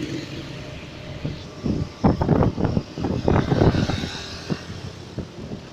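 Bus engine running close by, with uneven loud surges between about two and four and a half seconds in.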